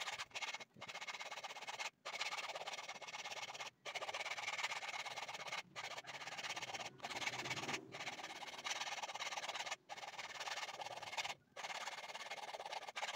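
A hand file rasping back and forth on the small toothed metal shaft of a washing-machine gearbox, in long strokes with short breaks between them. The shaft is being shaved down slightly because it is a bit too thick to fit into the pulsator.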